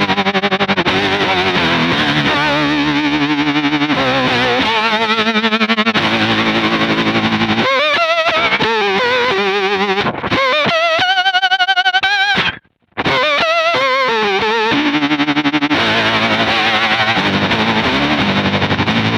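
Electric guitar through a Kemper profiler with heavy fuzz and a fast, staccato tremolo that chops the distorted tone into rapid pulses while chords and notes are played. About twelve and a half seconds in, the sound cuts off abruptly for a moment and then comes back.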